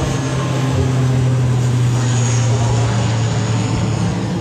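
Airplane taking off and passing low overhead, its engines making a loud, steady low drone over a broad rushing noise.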